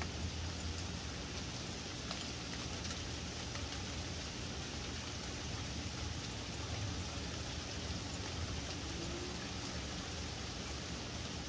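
Small hail falling steadily, a continuous hiss of pellets with faint scattered ticks as they strike the deck and surroundings.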